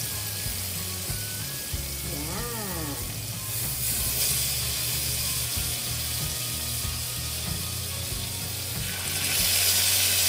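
Marinated pork pieces sizzling as they are laid one by one into hot melted butter in a frying pan, the sizzle growing louder near the end as more pieces go in.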